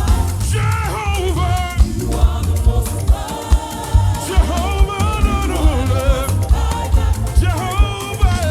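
Live gospel worship music: voices singing over a band with a heavy bass and drum beat.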